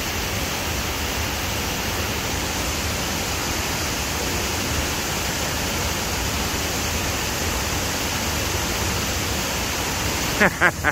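Waterfall: a steady rush of falling water. Near the end a voice briefly calls out over it.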